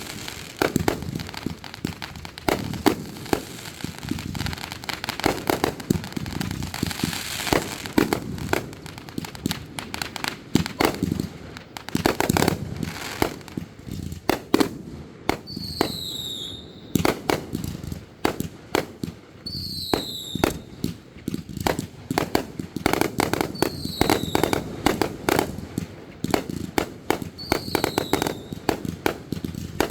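Fireworks going off in a rapid, continuous string of bangs and crackles. A short whistle falling in pitch comes through four times, about every four seconds, in the second half.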